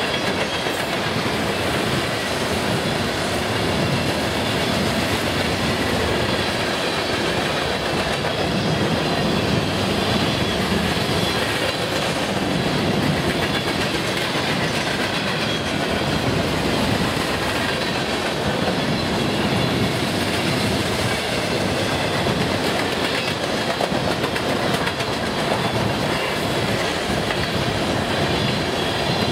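Mixed freight train's cars (covered hoppers, gondolas, tank cars and boxcars) rolling past close by at speed: a steady, unbroken rumble and rattle of steel wheels on the rails.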